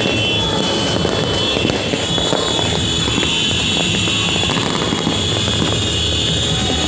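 Many distant fireworks and firecrackers going off at once, their pops and bangs merging into a steady, continuous crackling rumble with no single standout blast.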